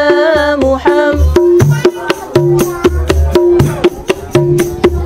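A sung note of a shalawat ends about a second in. Then a busker's portable hand-percussion rig takes over in a quick, busy rhythm of deep thumps, a ringing mid-pitched drum and sharp clicks.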